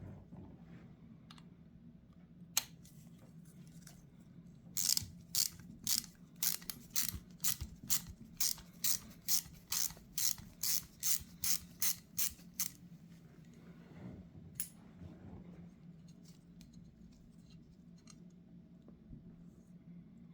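An even run of sharp mechanical clicks, about two a second for some eight seconds, from hand work on a carburetor during disassembly. A single click comes before the run and another after it, over a low steady hum.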